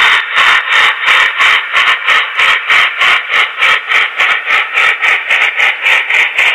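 Steam exhaust chuffs from the QSI sound decoder in an HO scale Norfolk & Western Y3 2-8-8-2 model, played through the model's small speaker. The chuffs are loud and steady at about four a second as the locomotive runs at an even speed.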